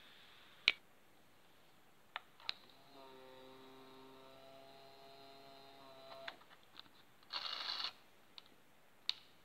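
Several sharp mechanical clicks, a steady pitched hum lasting about three seconds in the middle, and a short whirring buzz near the end.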